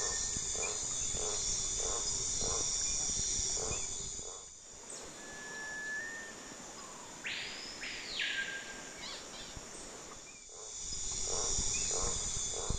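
Tropical rainforest ambience with a steady high insect drone. In the first and last few seconds a short call repeats about every half second. In the middle the sound changes abruptly, and a single louder call lasting about a second comes about seven seconds in.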